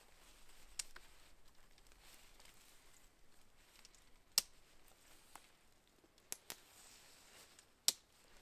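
Faint rustling of tent fabric with a handful of sharp clicks, the loudest about four and a half and eight seconds in: a Naturehike two-person freestanding tent being pitched, its clips snapping onto the poles.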